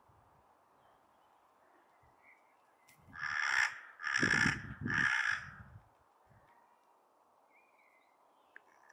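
Hooded crow cawing: three harsh caws in quick succession about three seconds in.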